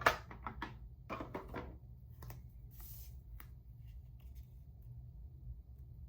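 Paper and cardstock being handled and pressed into place on a craft table: a cluster of light taps and rustles in the first two seconds and a few more around the middle, then only low room hum.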